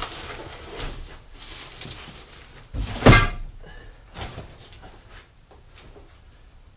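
Several knocks and clunks of things being handled and set down, the loudest a heavy thud about three seconds in.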